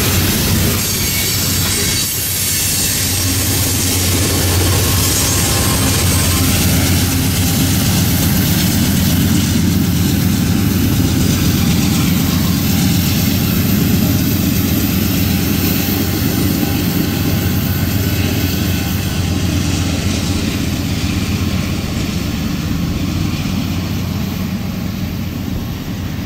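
Loaded iron ore train rolling by on steel rails: a steady rumble of the heavy hopper cars, with the diesel engine of the rear pushing locomotive, fading somewhat near the end as the train moves away.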